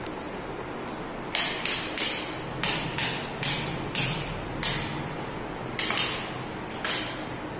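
About a dozen sharp slaps or knocks at an uneven pace, each ringing briefly in a bare, hard-floored room, over a steady hiss.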